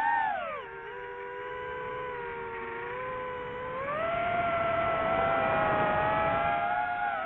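DJI FPV drone's brushless motors and propellers whining in flight, the pitch following the throttle: a short swell at the start, a drop for a few seconds, then a rise and a louder whine from about four seconds in, where the motors' tones split slightly apart.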